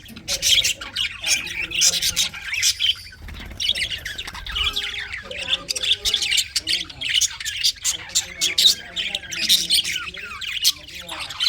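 Several budgerigars chattering and squawking, a dense, continuous run of short harsh chirps and warbles with a brief lull about three seconds in.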